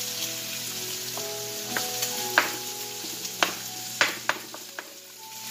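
Diced pork with garlic and onion sizzling in a frying pan as a wooden spoon stirs it, with several sharp knocks of the spoon against the pan.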